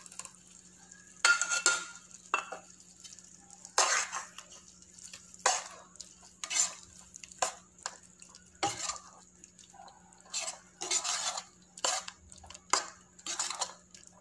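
A perforated steel spatula stirring cashew paste into onion-capsicum masala in a kadai: repeated metal-on-pan scraping strokes, roughly one a second.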